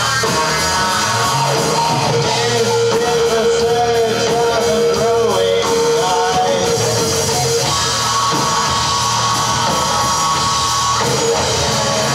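Rock band playing live: electric guitars and a drum kit, with a voice singing. Long notes are held over the top.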